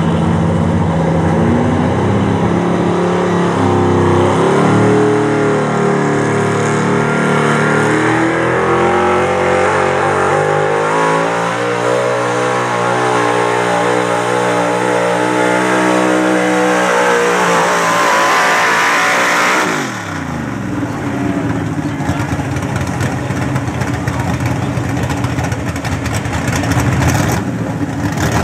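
Big-block V8 of a Chevrolet square-body 4x4 pickup running hard as it pulls the sled, its pitch climbing steadily for about eighteen seconds. The throttle is then let off, and the engine winds down with a quickly falling pitch. It settles into a lower, rough running for the last several seconds.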